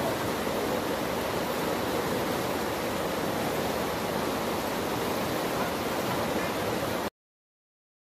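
Flood-swollen stream rushing over stones, a steady rushing of water that cuts off suddenly about seven seconds in.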